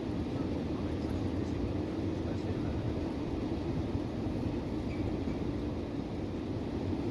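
Steady rumble of a car being driven: engine and road noise with no breaks or sudden sounds.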